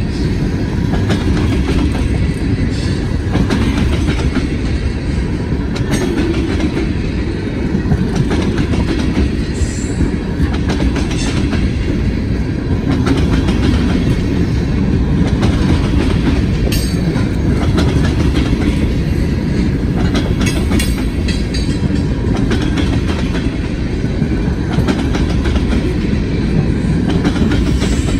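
Freight train cars rolling past, a steady rumble with the clatter of wheels over the rails.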